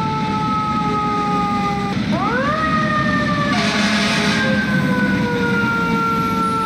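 Fire truck siren wailing, its pitch sliding slowly down, then sweeping sharply up about two seconds in and easing down again, over the low rumble of the truck's engine. A brief hiss comes in about three and a half seconds in.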